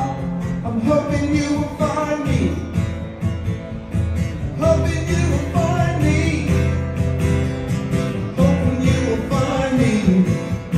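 Solo acoustic guitar strummed while a man sings a song with it.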